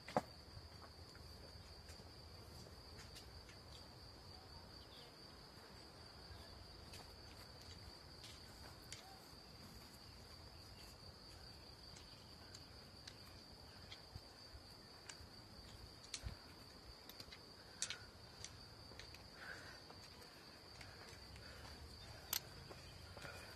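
Faint, steady high-pitched trill of crickets, with scattered sharp clicks of runners' trekking poles and footsteps on the trail. The loudest click comes near the end as a runner with poles passes.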